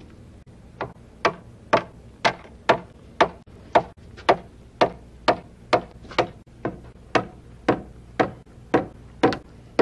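Rubber mallet tapping a stainless steel rub rail overlay, working it around the boat's curved stern: a steady run of about twenty sharp knocks, roughly two a second, starting shortly after the first second.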